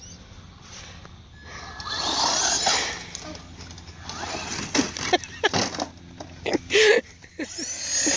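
Traxxas Slash remote-control truck setting off on its first run: a rush of motor and tyre noise about two seconds in, then a string of sharp knocks and clatters as it bumps along.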